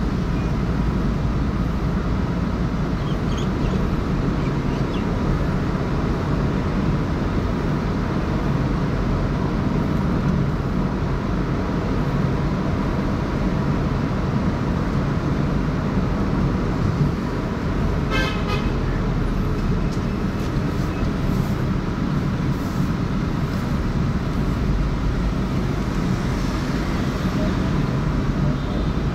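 Steady road and traffic noise from a car driving, with a vehicle horn sounding briefly about eighteen seconds in.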